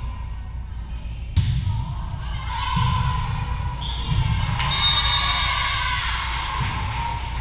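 Volleyball struck hard about a second and a half in, most likely the serve, followed by a rally in an echoing gym: further ball hits and rising shouts and cheers from players and spectators, with a brief high squeal near the middle.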